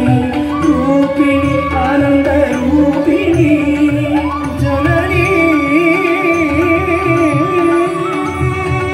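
Carnatic music accompanying the dance: a wavering melodic line over steady rhythmic drum strokes, gliding up about four seconds in into a long held high note.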